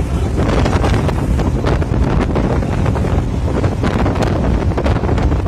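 Strong wind buffeting the microphone aboard a boat at sea, in irregular gusts over a steady low rumble.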